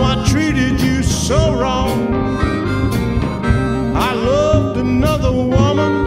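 Electric blues band in an instrumental break: a harmonica plays a solo with bent, sliding notes over guitar, bass and a steady drum beat.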